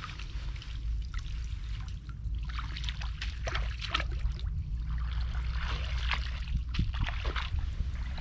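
Shallow water splashing and trickling in irregular bursts, over a steady low rumble.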